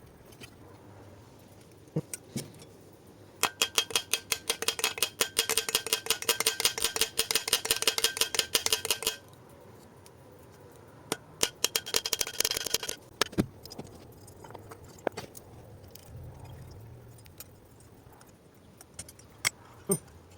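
Rapid ratcheting clicks from a tool tightening fasteners on a small two-stroke engine: one run of about six seconds, a shorter run a couple of seconds later, with scattered clinks of metal parts.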